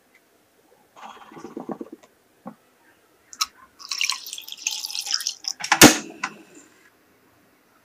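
Thick mousse batter landing softly in a cake ring, then water poured from a jug into an enamel saucepan for a couple of seconds. About six seconds in, a single sharp clack, the loudest sound, followed by a few faint rattles.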